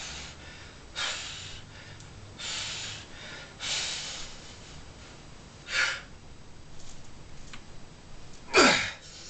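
A man's sharp, forceful breaths, about five of them, from straining to bend a 3/8-inch by 1-inch bar in wraps, ending near the end with a loud grunt that falls in pitch.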